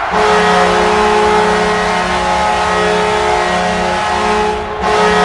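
Minnesota Wild goal horn blasting loudly. One long steady blast lasts about four and a half seconds, then after a short break a second blast starts near the end.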